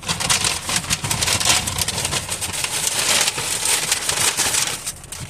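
Shopping bag rustling and crinkling as purchases are rummaged out of it, a dense run of crackles throughout.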